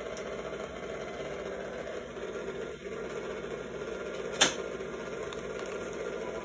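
Electric stand mixer motor running steadily while it mixes bread dough as flour is worked in. A single sharp knock about four and a half seconds in.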